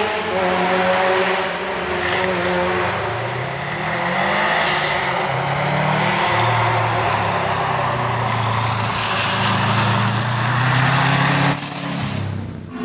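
Subaru Impreza rally car's turbocharged flat-four driven hard past, its engine note climbing and dropping several times through gear changes and lifts. A few short high chirps cut through the engine.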